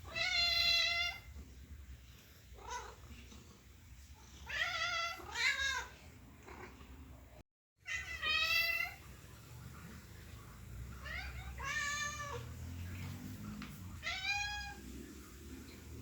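Domestic cat meowing over and over: about eight separate meows of varying length, a few long and drawn out, some shorter, with a low steady hum underneath and a moment of dead silence about halfway.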